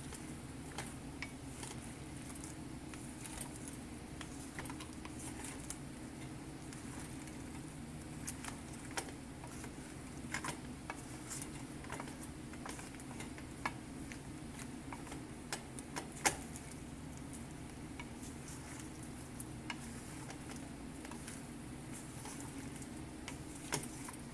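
Wooden spatula stirring shell-on shrimp and corn cobs in a skillet: scattered soft clicks and taps against the pan, the loudest about sixteen seconds in, over a steady low hum.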